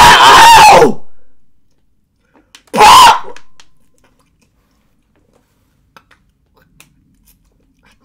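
A man's loud yell at the start, then a second short, loud vocal outburst about three seconds in while he is drinking water; quiet between and after.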